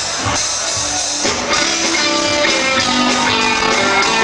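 Band music with strummed guitar over a steady beat, changing about a second in to more held notes.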